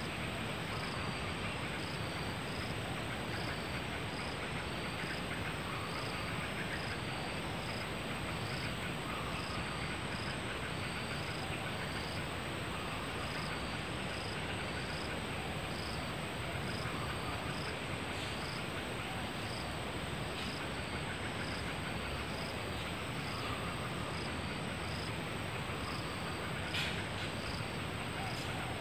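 Forest insects: a steady high-pitched drone with a short chirp repeating about once a second, over an even background hiss. There is a single faint click near the end.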